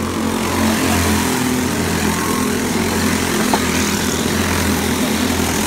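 Several racing go-karts running past at speed, their small engines buzzing together. They get louder as the pack comes by near the start.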